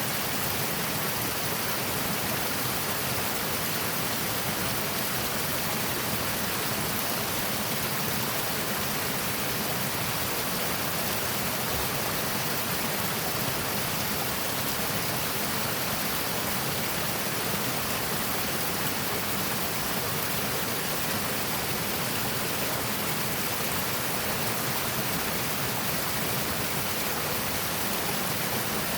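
Seasonal creek water rushing and splashing over rocks, a steady, unbroken rush.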